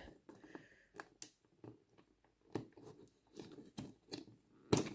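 Light, irregular clicks and taps of small parts being fitted into a 3D-printed model railway van's chassis, with a sharper click near the end.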